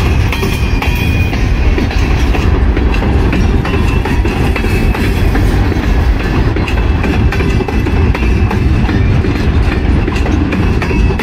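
Freight train of gondola cars rolling past close by: a steady, loud rumble of steel wheels on rail with clickety-clack as the wheels cross the rail joints.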